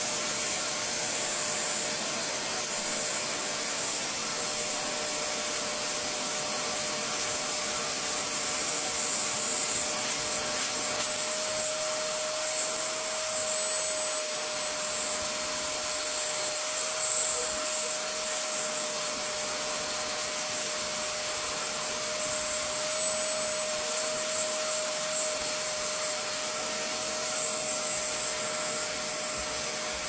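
Bissell SpotClean Turbo portable carpet cleaner running steadily with its suction hand tool rubbing back and forth over the carpet to lift a spill. A steady tone joins the motor noise about a third of the way in.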